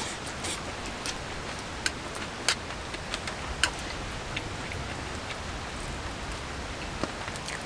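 Steady autumn rain, with scattered sharp ticks and pops every second or so.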